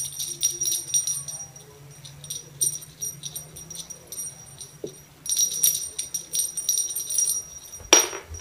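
Small jingle bells on a fluffy cat toy jingling as the toy is swung and batted about, in two spells with a lull between them. One sharp knock near the end.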